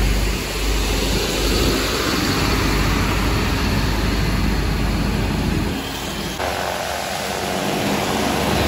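Mercedes-Benz 1626 coach's diesel engine running, heard under a loud, rushing noise with a strong low rumble. About six and a half seconds in the sound changes abruptly and the low rumble drops away.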